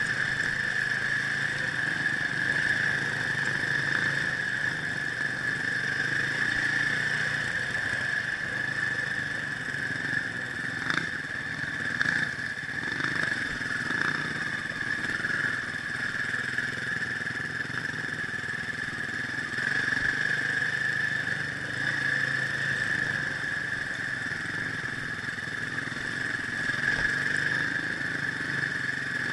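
Dirt bike engine running steadily while the bike is ridden over a gravel track, heard from a helmet-mounted camera, with a constant high whine over the engine note. A few short knocks come about midway.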